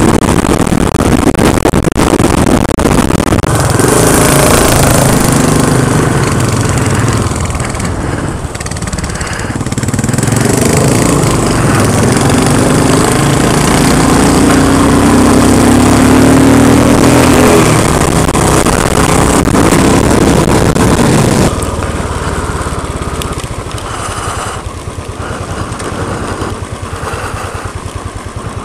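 Royal Enfield Continental GT's single-cylinder engine running while riding, with wind rush over it; its pitch rises through the middle as it accelerates, and the sound drops sharply in loudness a little past twenty seconds.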